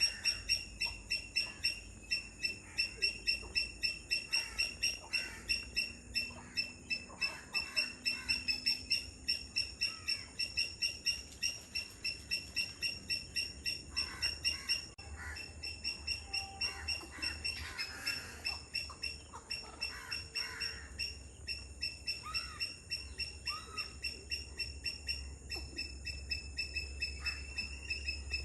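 Wetland birds calling over a steady, rapid high chirping that repeats about four times a second. Other, lower calls come and go, most of them in the middle stretch.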